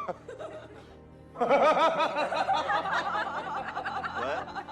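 Quick, high-pitched laughter, with several voices overlapping, starting about a second and a half in, over background music.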